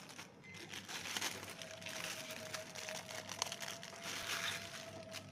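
Clear plastic bag crinkling and rustling in uneven handfuls, with a few sharp crackles, as a dog collar is worked out of it.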